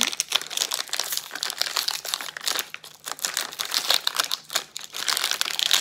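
Plastic pouch of a Cirkul flavor cartridge crinkling and crackling as hands twist and pull at it, struggling to tear it open, with a brief lull about three seconds in.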